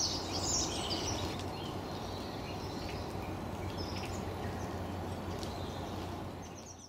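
A feeding flock of Eurasian siskins twittering, thickest in the first second, then only a few thin high calls over a steady low background rumble; it all fades out at the end.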